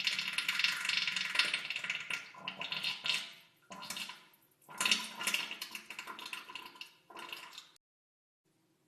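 Diarrhea sound effect: wet, spluttering noise in four bursts, a long one of about three and a half seconds followed by three shorter ones.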